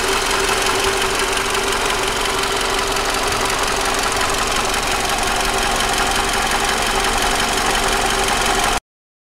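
Toyota 2AZ-FE 2.4-litre inline-four engine idling steadily, heard close up in the open engine bay. The sound stops abruptly near the end.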